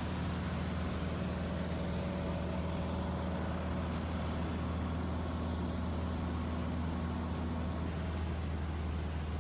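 Steady, unbroken low engine drone with an even hiss over it, as heard riding inside a moving vehicle.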